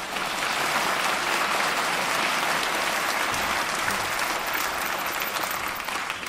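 Theatre audience applauding steadily, a dense crowd of claps that eases off slightly near the end.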